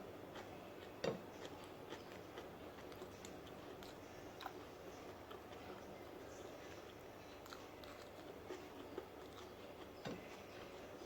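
Faint eating sounds: chewing with scattered small clicks of cutlery or dishes, the sharpest knock about a second in and another near the end.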